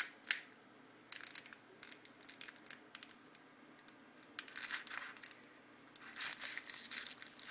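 Trading-card pack wrapper crinkling in irregular bursts as fingers work at tearing it open, with a struggle to get the packet started.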